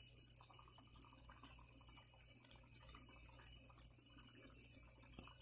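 Faint sizzling and bubbling of matar paneer gravy simmering in a pan, a steady patter of soft crackles.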